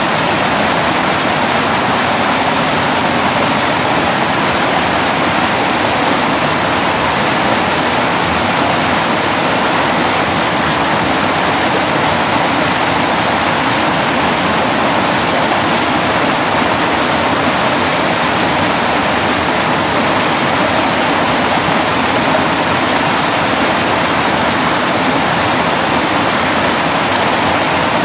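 Mountain creek rushing over boulders in white-water rapids: a steady, loud rush of water.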